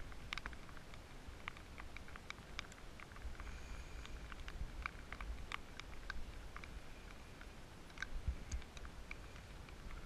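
Light rain pattering: scattered, irregular faint ticks of raindrops, with a low rumble underneath.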